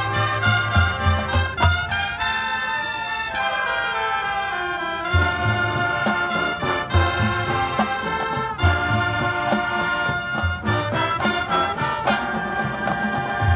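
High school marching band playing a big, jazz-styled brass passage: trombones and trumpets holding loud chords, with a falling run about a third of the way in, over regular low drum hits.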